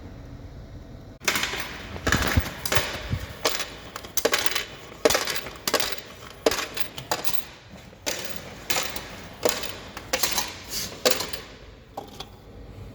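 Necta Canto Touch coffee vending machine working through a hot chocolate: a long run of irregular clicks and clatters that starts about a second in and dies away near the end.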